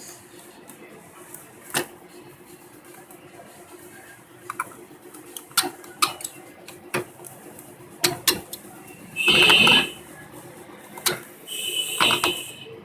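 Small hand tools clicking and tapping on a smartphone's frame and the work surface as its lower section is opened: scattered sharp ticks, with two brief scraping rattles, one just past the middle and one near the end.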